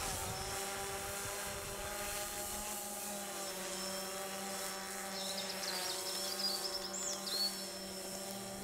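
Quadcopter drone flying overhead: a steady propeller whine of several held tones that dips slightly in pitch about halfway, then steadies. A small bird chirps a few times in the second half.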